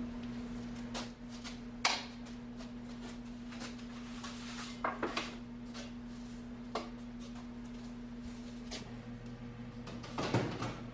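Aluminum sheet being worked through a hand-cranked slip roller: a few light metallic clanks and knocks over a steady hum, which stops about nine seconds in. Near the end comes a louder rattle of the sheet-aluminum panel being handled.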